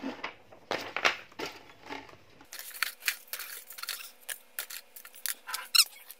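Paper instruction sheets rustling as they are handled. After an abrupt cut come a series of sharp clicks of plastic model-kit parts being snipped from their runners with nippers and handled, with a brief high chirping near the end.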